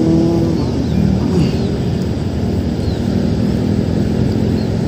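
Steady rumble of road traffic from the highway bridge, with a heavy vehicle's engine hum joining in about halfway through.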